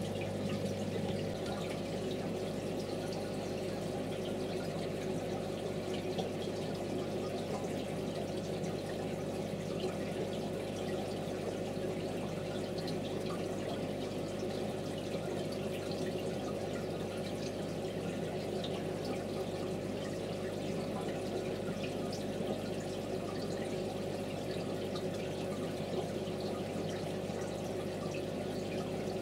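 Aquarium water trickling and dripping over a steady low hum: the tank's filtration running.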